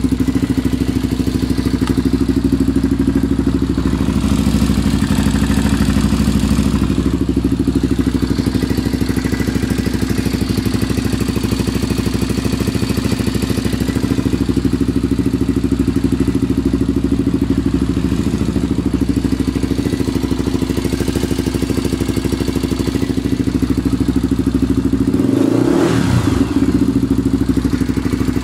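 Honda 400EX ATV's single-cylinder four-stroke engine idling steadily with a ticking noise, which the owner takes for badly out-of-adjustment valves. Near the end the engine is revved briefly, rising and falling once.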